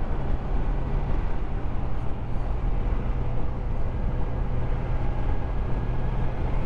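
Motorcycle engine running at a steady cruising speed under a constant rush of wind and road noise.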